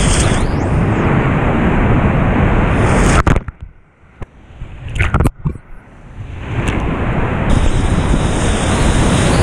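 Rushing water of big, high-flow whitewater rapids, heard from a kayak as it runs through them. Midway the rushing noise drops away to a muffled hush for about two and a half seconds, broken by a few sharp splashes, and then comes back loud.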